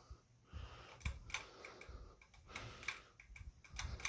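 SMC DC-42 ceiling fan running on medium speed, with a faint low rumble and irregular sharp ticks from inside the motor, about six in all. The owner takes the noise for the motor's bearings.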